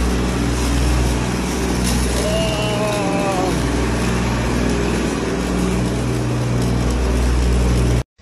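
Metal shopping cart rolling and rattling over a concrete parking-garage floor, a loud, steady rumble that cuts off suddenly near the end.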